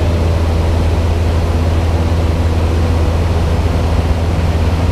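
Single-engine high-wing light aircraft's piston engine and propeller running steadily in cruise, heard from inside the cabin as a constant loud drone with a deep hum.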